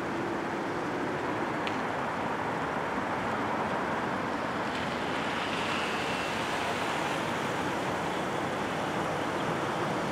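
Steady traffic noise from cars idling at a railroad grade crossing, an even rush with no distinct events.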